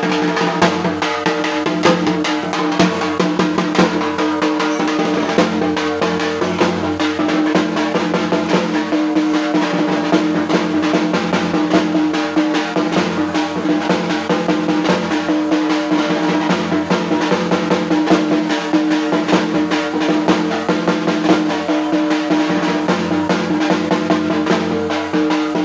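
Drums beaten in fast continuous rolls, dense and unbroken, with steady ringing tones underneath.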